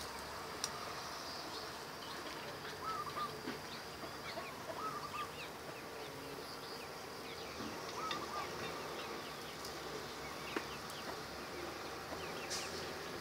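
Insects buzzing, with a bird's short call repeating every few seconds and faint small ticks and rustles of a nylon net being handled.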